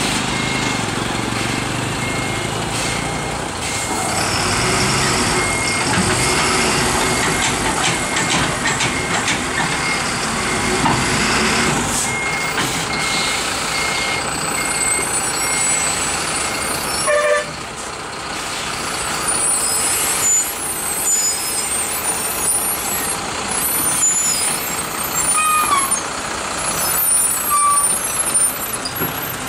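Heavy goods truck's diesel engine running at low speed as it works slowly round a tight hairpin bend, with a reversing alarm beeping evenly until about halfway through. Short hisses of air brakes come now and then.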